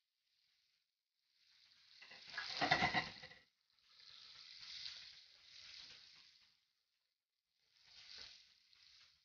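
Chopped garlic and red onion sizzling in hot oil in a wok while being stirred with a wooden spatula. The sizzle comes in three stretches with silent gaps between, loudest about two to three seconds in.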